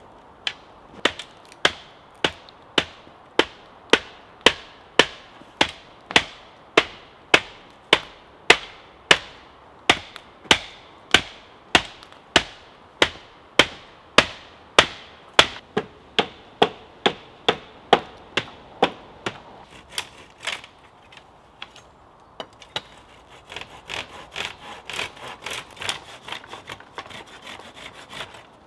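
A steady run of sharp wooden knocks, a little under two a second, for about twenty seconds, then a hand saw cutting through the tops of hazel wattle rods in quick strokes near the end.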